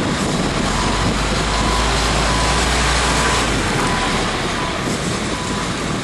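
Backhoe's diesel engine running under load, a loud, steady machine noise with a deep rumble that eases a little past halfway through.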